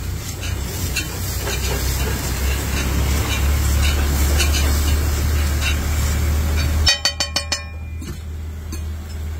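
A steel spatula stirs and scrapes masala across a large iron tawa, with light scraping clicks. About seven seconds in there is a quick run of sharp metallic taps as the spatula chops against the griddle. A steady low rumble runs underneath.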